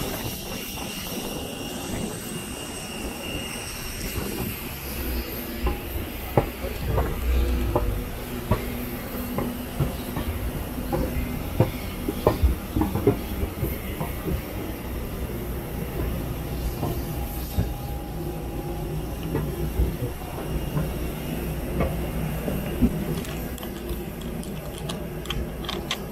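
Footsteps knocking and clanking on metal aircraft boarding stairs, irregular and densest in the middle, over a steady low rumble with a faint high whine from the parked airliner.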